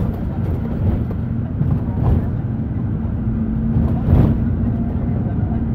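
Minibus interior noise while driving: a steady low engine and road rumble with a constant hum, broken by two short knocks about two and four seconds in.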